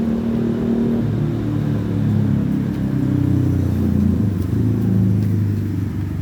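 A motor vehicle engine running close by; its low hum drops in pitch about a second in and then wavers up and down.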